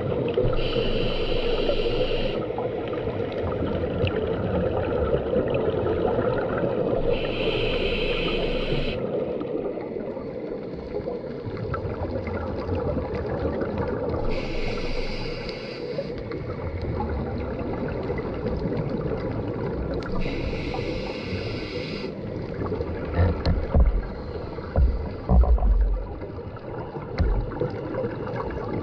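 A scuba diver breathing through a regulator underwater: a hissing breath every six or seven seconds, four in all, over a steady low wash of water noise. A few low thumps come near the end.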